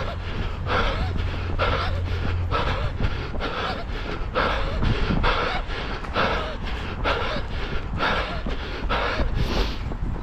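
A runner's heavy breathing close to the microphone during a fast run: hard exhales about once a second in a steady rhythm, over a low rumble.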